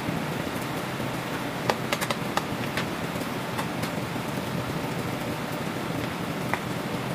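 Steady rushing background noise of a commercial kitchen, with a cluster of sharp clicks and taps around two seconds in and one more near the end.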